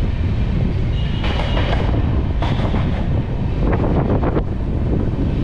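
Passenger train coaches rolling along the track, heard from an open coach door: a steady low rumble of wheels on rail with wind on the microphone, broken by a few sharper rattles and clacks.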